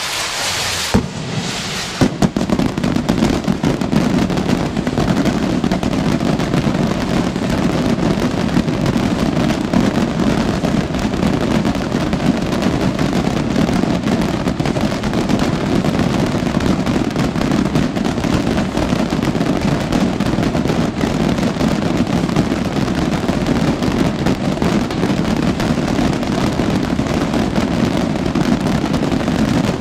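Massed pyrotechnic rockets (voladores) exploding in a dense, unbroken barrage, the bangs running together into one continuous crackling rumble. A couple of separate bangs come first, and the full barrage sets in about two seconds in.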